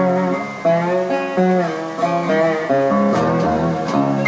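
Amistar resonator guitar being played: a slow run of plucked notes and chords, each left to ring before the next.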